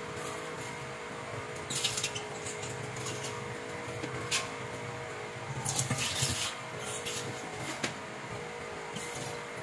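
Things being handled inside an open refrigerator freezer: scattered clicks and rustles, loudest about six seconds in, over a steady background hum.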